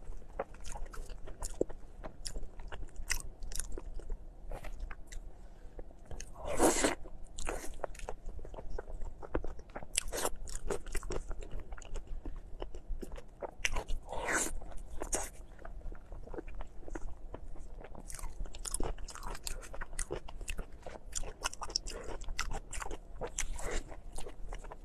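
Close-miked eating: bites into glazed sausage and lettuce leaves, with wet chewing and a steady run of small mouth clicks and crackles. Two longer, louder bites stand out, about seven and fourteen seconds in.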